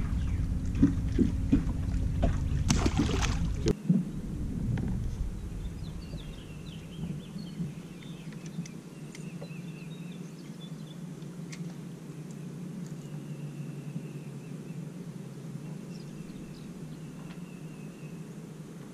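For the first four seconds, wind rumbles on the microphone with small clicks and a short rushing gust. After that a steady low hum runs under birds calling in short repeated notes.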